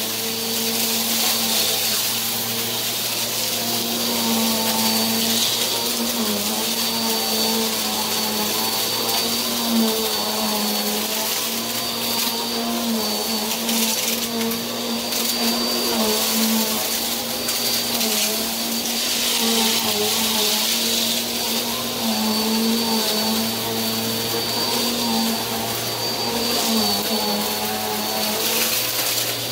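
Upright bagless vacuum cleaner running steadily as it is pushed over carpet and a rug. Its motor hum and faint high whine dip briefly in pitch every few seconds over a constant rush of air.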